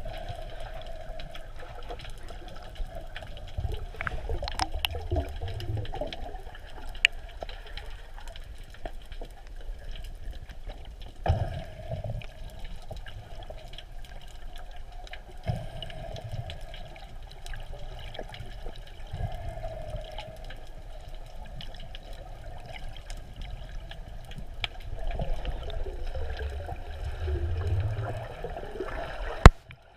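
Muffled water noise as picked up by a camera in the water: a steady wash with intermittent low rumbles of water movement and scattered small clicks. There is one sharp knock near the end.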